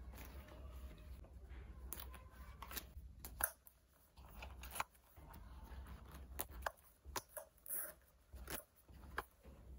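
Faint handling of a quilted fabric zip pouch and the small items going into it: soft rustling with a dozen or so sharp, irregular clicks and taps.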